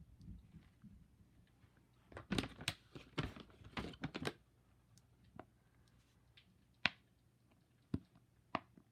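Hands handling packaging and small fidget toys: a quick flurry of crinkling and clicking about two seconds in, then a few separate sharp clicks.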